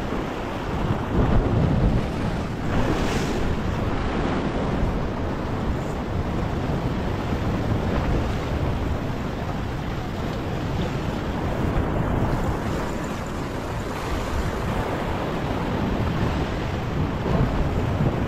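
Ocean swell surging and washing against a rock ledge, with wind buffeting the microphone. The wash swells louder about a second in and again near the end.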